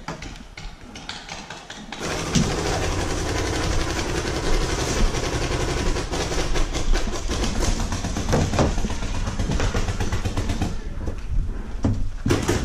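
Paintball markers firing in rapid strings: a dense, fast run of sharp pops that starts suddenly about two seconds in and keeps going, with some balls likely cracking against the wooden bunker.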